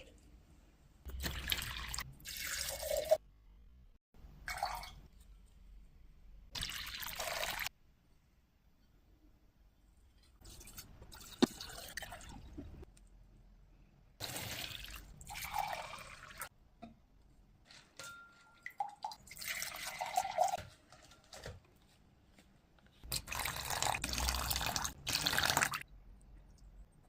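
Water being poured to water plants, in about seven separate short pours of one to three seconds each, with brief pauses between them.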